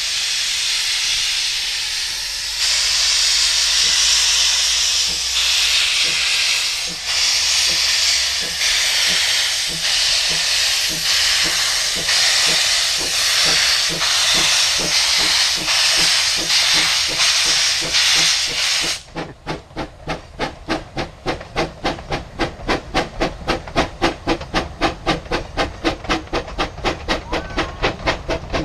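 Narrow-gauge steam locomotive starting away with its train: a loud, steady hiss of steam from the open cylinder drain cocks, with exhaust chuffs that gradually quicken. About two thirds of the way through the hiss cuts off suddenly as the drain cocks close, and the clear exhaust beats carry on at about four a second.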